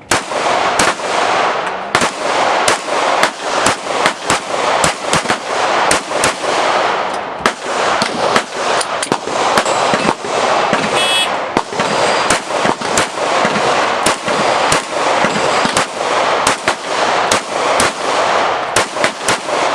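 Glock pistols firing at a match, a fast string of sharp shots two or three a second with others overlapping. About halfway through, an electronic shot-timer beep sounds briefly.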